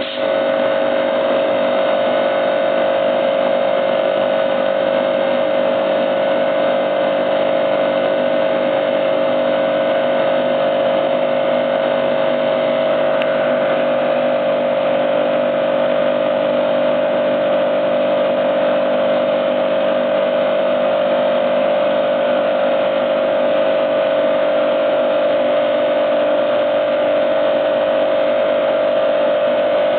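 Three-phase motor-driven air-conditioner compressors of a home-built air compressor running steadily, a constant mechanical hum with a strong mid-pitched tone.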